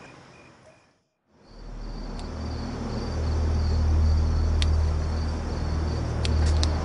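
Crickets chirping steadily at night. The sound cuts out briefly about a second in, then resumes with a low steady rumble building underneath and a few faint clicks near the end.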